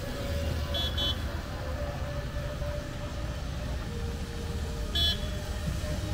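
Street traffic on a wet road, a steady low rumble, with a small vehicle horn giving two quick short beeps about a second in and one louder beep about five seconds in.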